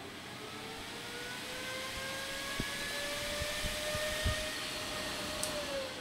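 AVC DBPF1238B8G server fan spinning up, its whine and rush of air rising steadily in pitch and loudness, then beginning to drop just before the end. A few low thumps in the middle.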